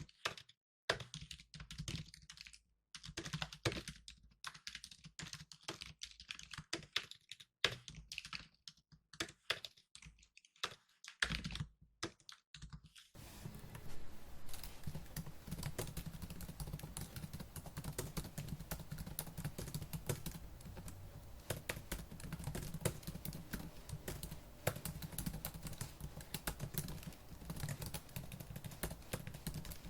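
Fast typing on a laptop keyboard, a quick run of key clicks. For the first part it comes in bursts with short silent gaps, and from about halfway it runs on without pause over a steady faint background hiss and hum.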